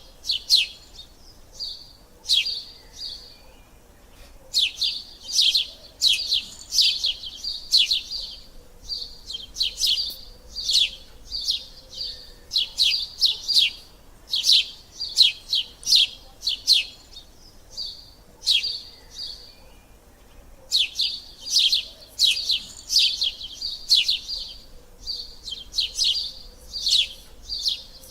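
Sparrows chirping close by: sharp, repeated chirps in quick runs, with short pauses between bouts.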